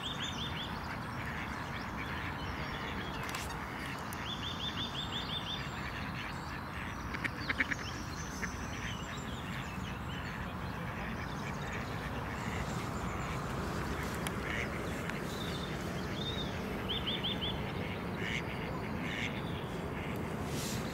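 Lakeside ambience: a steady rushing background with birds calling over it, including a few short, rapid trills of repeated high notes scattered through.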